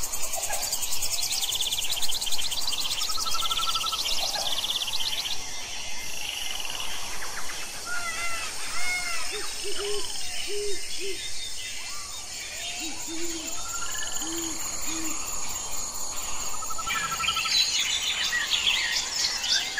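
Tropical forest ambience: many birds chirping, trilling and whistling over a steady high insect drone, with two short runs of three low cooing notes in the middle.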